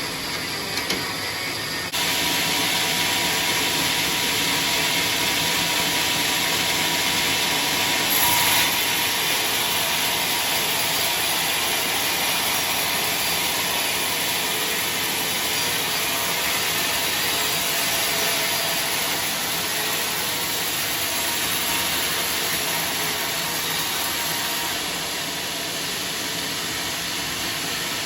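Sawmill saw running and cutting through a log: a steady, loud whirring noise that jumps up about two seconds in and eases off near the end.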